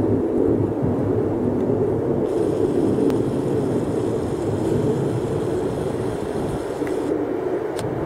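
Metro-North EMD GP35-R diesel locomotive approaching while towing a dead M6 railcar set, its engine a steady low rumble.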